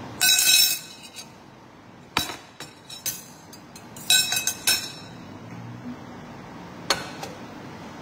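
Dishes and kitchen utensils clinking and clattering: a burst of ringing clinks at the start and another about four seconds in, with single sharp knocks between them and one near the end.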